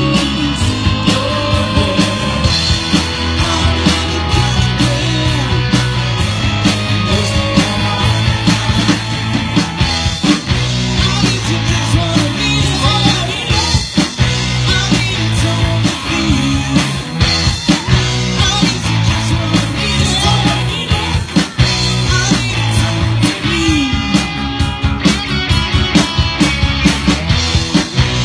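Live amplified rock band playing: electric guitars and drums over a stepping bass line, with singing at times.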